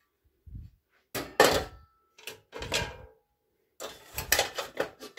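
Gotham Steel nonstick pans, lids and a wire fry basket knocking and clattering against each other as they are handled: a soft thump first, then several separate bursts of clatter.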